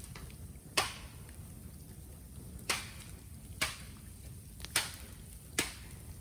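Bonfire of raw bamboo crackling: five sharp cracks at uneven intervals over a low steady background.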